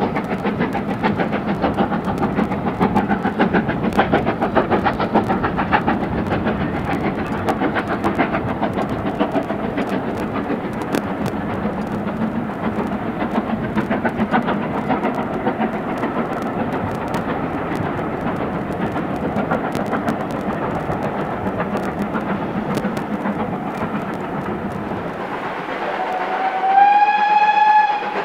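Steam locomotive working a passenger train, its exhaust beat and running sounds steady. Near the end a steam whistle sounds once, rising slightly in pitch and lasting about a second and a half.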